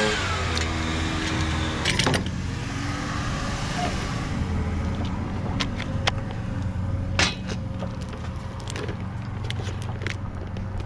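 A low engine rumble in the background, its pitch falling just at the start, under scattered clicks and rattles of plastic as a string trimmer head and its line packaging are handled; the sharpest clicks come about two and seven seconds in.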